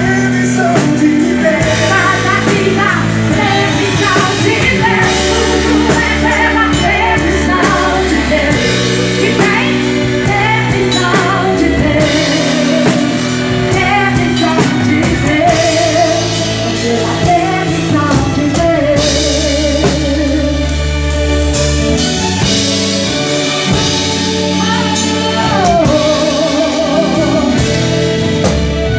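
Live gospel band with drum kit, bass and guitar, and a woman singing lead over it.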